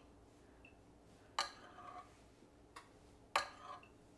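Metal spoon clinking against a glass baking dish while spooning liquid over fish: two clear clinks, each with a short ring, about two seconds apart, and a fainter tick between them.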